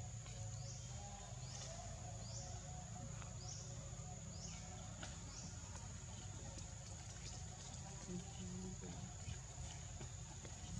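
Forest ambience: a steady high-pitched insect drone, with short rising chirps repeating roughly once a second through the first half, over a low rumble.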